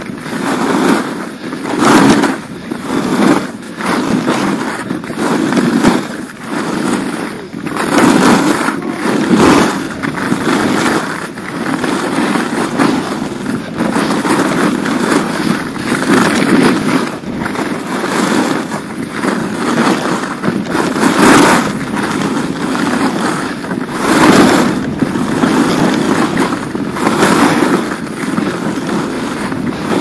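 Skis scraping over hard-packed groomed snow during a run of turns. The hiss swells and eases every second or two as the edges bite in each turn.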